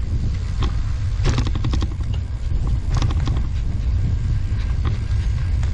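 Steady low rumble of a recumbent trike rolling along the road, with wind on the trike-mounted microphone and scattered light clicks and rattles from the trike.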